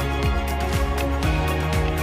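Background music with a steady beat of about two strokes a second under held, sustained notes.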